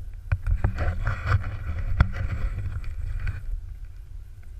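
Wind buffeting the camera microphone as a steady low rumble, with a few sharp knocks and a scraping hiss that sets in about a second in and fades after a couple of seconds.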